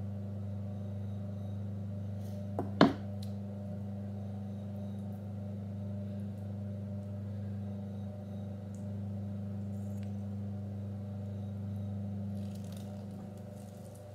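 Electric potter's wheel motor humming steadily while wet clay is worked on the wheel head, with one sharp knock about three seconds in. The hum fades near the end.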